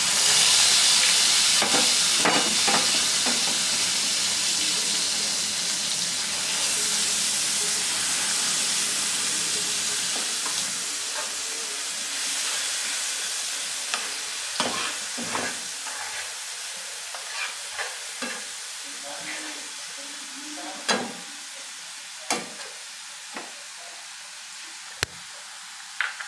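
Onion paste dropped into hot mustard oil starts frying with a sudden loud sizzle that slowly dies down. A spatula stirs it, with sharp knocks and scrapes against the pan that come more often in the second half.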